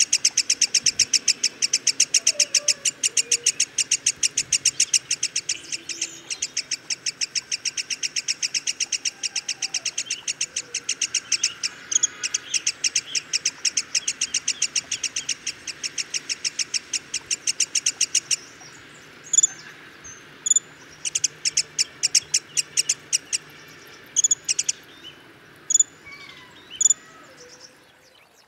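A bird calling a long, fast, even series of short high notes. They stop about two-thirds of the way in, and a few scattered chirps and a short rapid burst follow.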